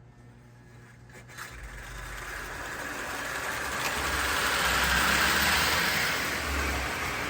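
Restored prewar American Flyer 3110 steeple cab toy locomotive running on its track, its motor and wheels getting louder over the first few seconds, loudest about five seconds in, then easing slightly.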